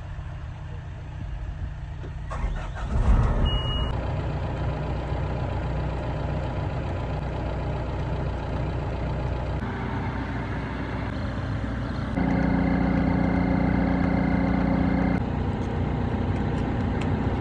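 John Deere 310 SL backhoe's diesel engine running steadily. A louder, steady pitched drone joins for about three seconds past the middle, then drops away.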